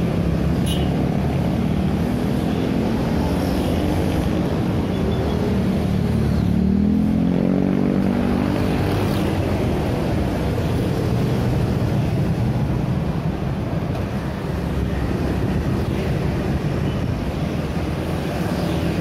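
Dense road traffic passing close by, mostly motor scooters and motorcycles with some cars: a steady mix of small engines and tyre noise. About six to eight seconds in, one engine rises in pitch as a vehicle accelerates past.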